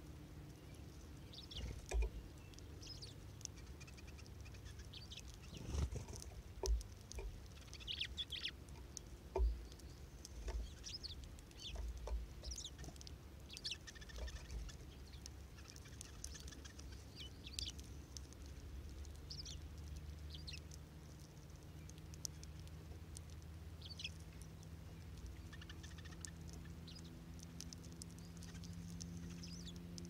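Small finches giving short, high chirps at irregular intervals. Soft low thumps and taps come in the first half, and a faint steady low hum comes in past the middle.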